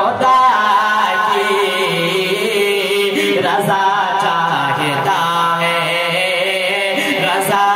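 A man's voice chanting an Urdu naat into a microphone, in long phrases whose pitch wavers and glides.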